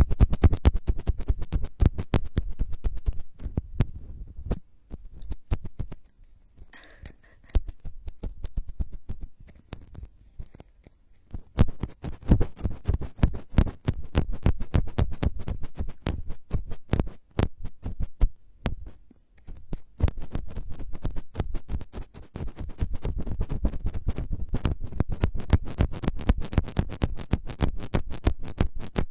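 Rapid close-microphone ASMR tapping and scratching: dense runs of quick clicks with a heavy low thump, broken by a few short pauses.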